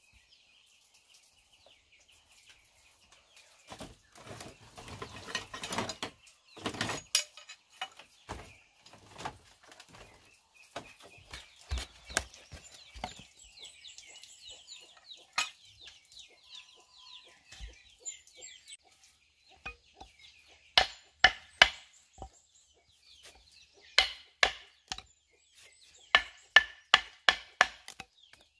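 Chickens clucking and chirping, with some rustling and knocking, then a hatchet chopping into the top of a wooden log: sharp blows in quick runs of several strokes, the loudest sounds here.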